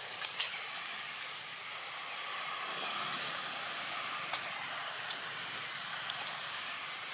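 Steady outdoor background hiss with a few sharp clicks, the loudest about four seconds in.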